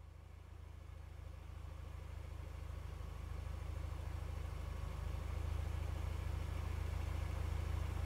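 A vehicle engine running at a steady low speed, fading in from near silence and growing steadily louder.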